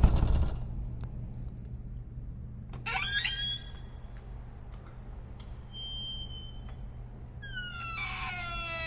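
Very squeaky door hinges. The door bangs shut at the very start, then gives a short squeak about three seconds in and a faint thin squeal around six seconds. Near the end a long, loud squeal begins as the door swings again, dropping slightly in pitch.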